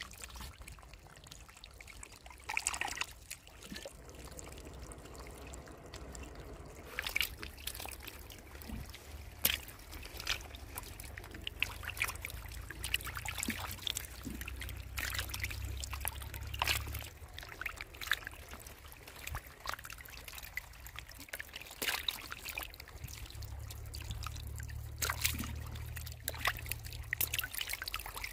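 Water trickling and pouring steadily from two plastic pipes into a shallow muddy pool, with frequent short sharp splashes as climbing perch flap about in the water, more of them after the first several seconds.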